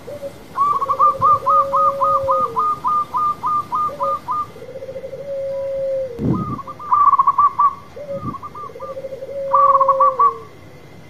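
Zebra dove (perkutut) song: a lower wavering coo that ends in a falling note, in three bouts, with a quick run of higher hooked notes over it. There is a short low thump about six seconds in.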